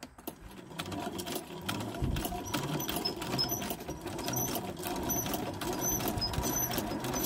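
Sewing machine running, stitching a zipper onto screen mesh, with rapid, even needle strokes that get a little louder about two seconds in.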